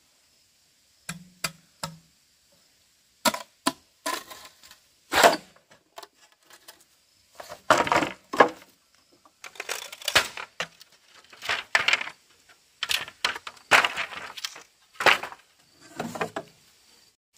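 Wood or bamboo being worked by hand: irregular sharp cracks and knocks, with a few short rasping scrapes between them.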